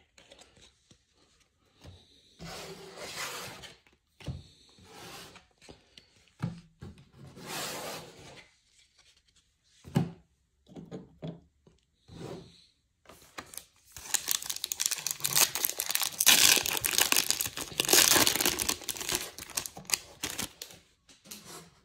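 A trading-card pack's wrapper being torn open and crinkled, a loud, dense crackling stretch in the second half. It follows scattered softer rustles and taps of cards being handled.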